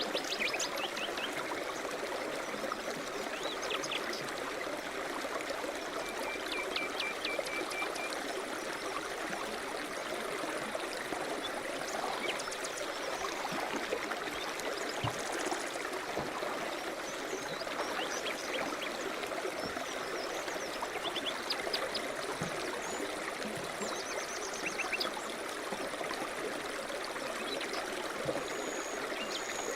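River rapids flowing steadily, with birds chirping over the water now and then, including a short trill about six to eight seconds in.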